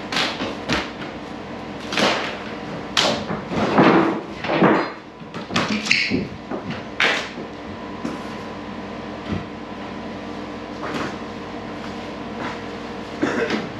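Wooden wall boards being pried off and handled: a run of knocks, creaks and scrapes of wood for about the first seven seconds, then only a few light knocks.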